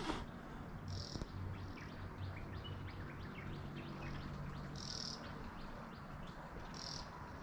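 Morning outdoor ambience: birds chirping in short quick notes, with brief high-pitched insect buzzes recurring every couple of seconds, over a low steady background rumble.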